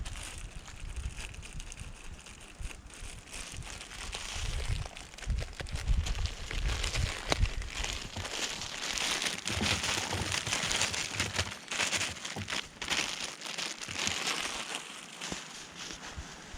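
Irregular rustling and crackling, with uneven low rumbling on the microphone.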